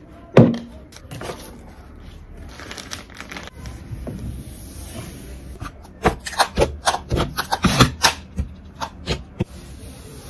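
Bottles and small cosmetic items being handled and set down on a tabletop: one knock shortly after the start, then a run of quick knocks and clatters in the second half.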